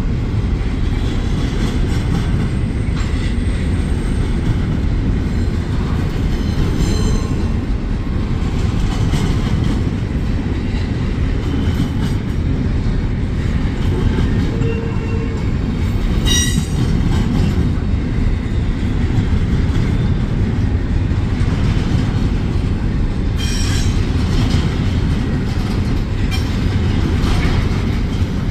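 Double-stack intermodal freight cars rolling past at close range, giving a steady low rumble of wheels on rail. Three brief high wheel squeals cut in, one at about 7 seconds, the loudest near the middle and one at about 23 seconds.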